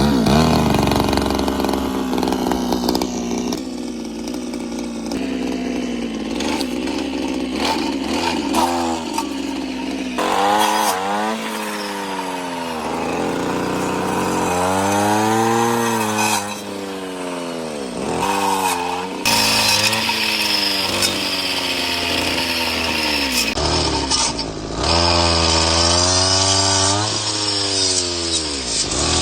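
Brush cutter engine running hard with a 20-tooth saw blade fitted. From about ten seconds in, its pitch repeatedly sags and climbs back, as the engine slows under load while the blade cuts and then speeds up again.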